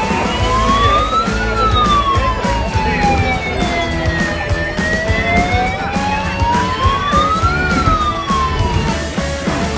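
An emergency-vehicle siren wailing, its pitch rising and falling slowly, each sweep about three seconds long. It cuts off near the end, over a steady low rumble.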